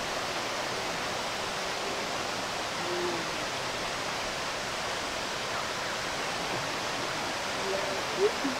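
Stream rushing steadily over rock slabs, a constant even wash of water. A brief, louder pitched sound cuts in near the end.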